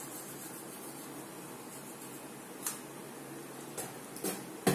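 Steady low hiss, with a few short sharp sounds near the end, the loudest just before it ends: spitting into a washbasin after brushing teeth.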